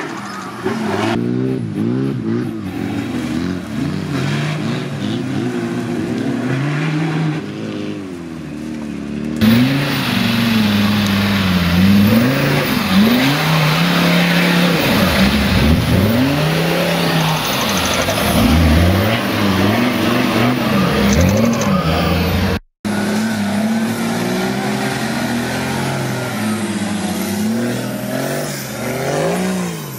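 Off-road trial 4x4 engines revving hard under load while climbing steep muddy slopes, pitch swinging up and down again and again with the throttle. The engine sound changes abruptly a few times as one vehicle gives way to another.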